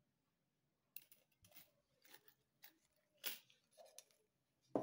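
Faint handling sounds of a few thumbtacks and their small cardboard box being gathered up off the table: light clicks and rustles a second or so apart, starting about a second in.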